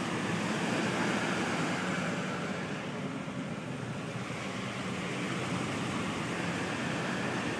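Vehicle engine and tyre noise heard from inside the cab while driving slowly along an underground tunnel, a steady rumble and hiss.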